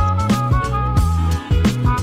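Upbeat background music with a steady beat, bass and a horn-like melody, in a swing-funk style.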